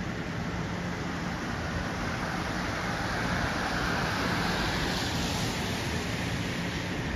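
Steady urban traffic noise with a constant low hum, swelling for a few seconds midway like a vehicle passing.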